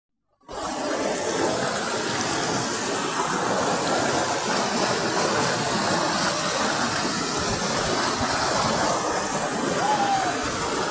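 Steady rush of flowing water, an even hiss that starts about half a second in and holds at one level.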